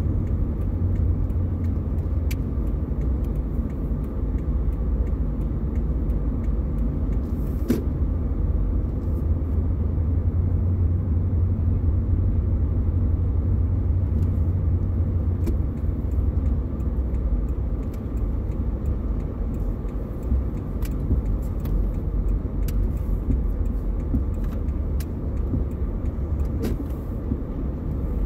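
Car cabin noise while driving slowly: a steady low rumble of engine and tyres on the road, with a few faint irregular clicks, the most distinct about eight seconds in.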